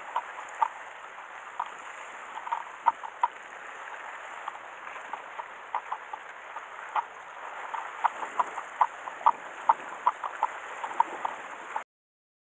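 Steady hiss of sea water washing against a rocky shore, with irregular short sharp clicks a few times a second. All of it cuts off suddenly near the end.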